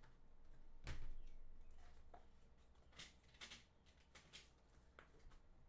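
Mechanical keyboard parts being handled during a build, faint: one knock about a second in, then a few scattered light clicks and taps.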